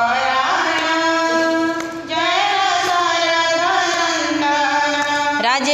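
Women's voices singing a Hindu devotional bhajan together, drawn out on long held notes, with a short breath-break about two seconds in.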